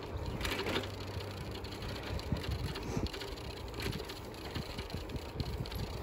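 Bicycle rolling along a paved path: tyre noise with small irregular rattles and knocks, and wind buffeting the microphone. A brief louder hiss comes about half a second in.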